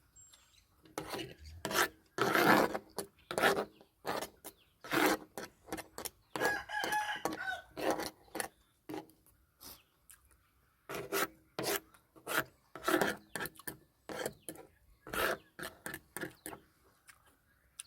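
Close-up eating noises: chewing and mouth clicks, a rapid irregular run of short sharp sounds. A rooster crows once in the background, about six and a half seconds in.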